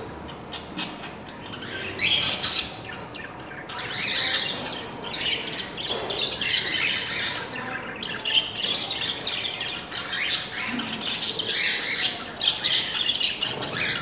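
Budgerigars chattering in a cage: a busy, unbroken stream of short, high chirps and warbles from several birds at once.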